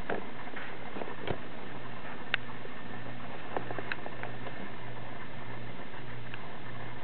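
Schnauzer puppy playing with a rope toy on carpet: a few soft clicks and taps, the sharpest about two and a half seconds in, over a steady hiss and low hum.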